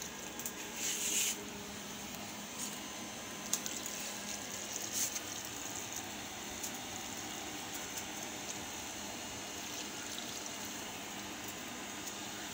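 Diluted liquid fertilizer poured from a jug onto potted alyssum plants, splashing on the leaves and soil, with a brighter burst about a second in.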